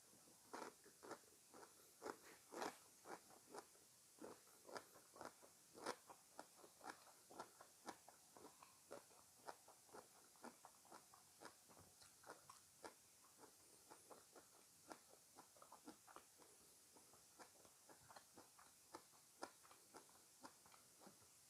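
A person chewing crunchy fresh fruit, a steady run of crisp crunches about two or three a second.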